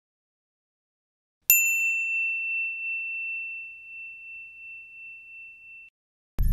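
A single bell-like ding after about a second and a half of silence: one clear high tone that rings out and fades over about four seconds, wavering slightly as it dies away.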